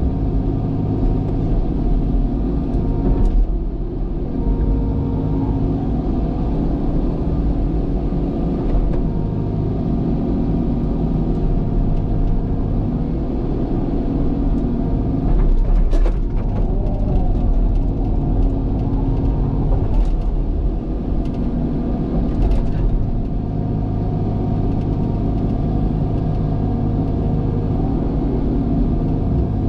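Diesel engine of a heavy earthmoving machine running steadily under work, with several sharp knocks from the machine as it works.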